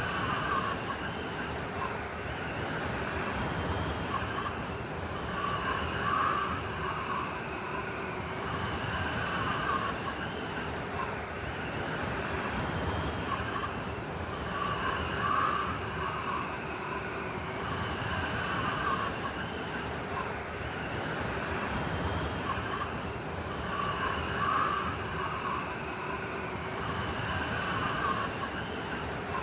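Blizzard wind howling steadily, with a whistling gust swelling about every nine seconds.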